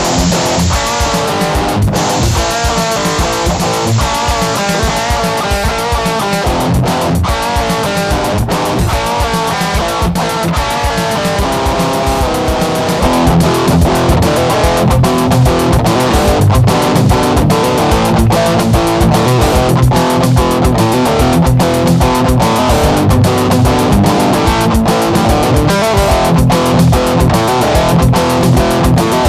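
Background music: an electric guitar played over a drum-machine beat, getting louder and fuller about thirteen seconds in.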